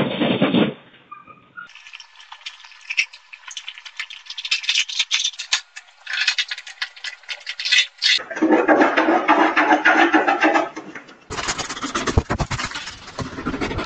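Dogs tearing up a sheet of floor covering: repeated ripping and crackling with dense rustling. The sound changes abruptly a few times.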